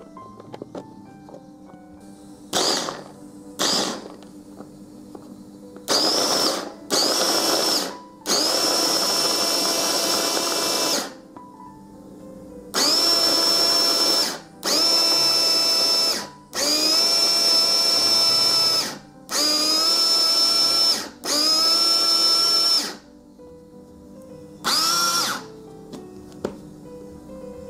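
Miisoo mini food processor's small battery-powered motor whirring in about eleven short pulses, each from under a second to about three seconds long, as its blades chop garlic cloves in the 250 ml bowl. The longest pulses fall in the middle, with two short ones at the start and one near the end.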